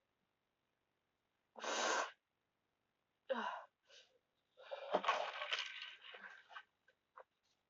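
A woman's heavy, wheezy breaths through the mouth, three or four separate exhales and gasps with the longest about five seconds in, from the burn of extremely spicy noodles.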